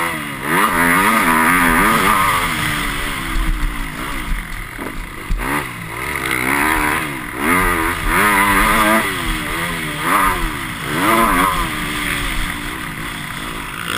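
Motocross motorcycle engine heard up close from on board, revving up and falling back again and again as the rider opens and shuts the throttle over jumps and through corners.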